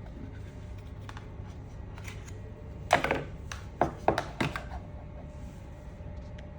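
Handling noises from an unboxing: a few short knocks and taps about three to four and a half seconds in, over a steady low hum.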